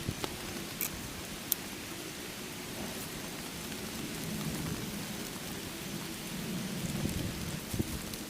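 Steady rain falling, with a few sharp drop ticks about a second in and a low rumble that swells through the middle.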